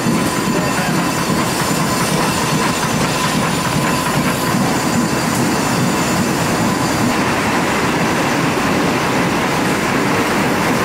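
Steady din of an ammunition plant's production floor: many machines running at once in a dense, rapid clatter, with a faint steady whine running through it.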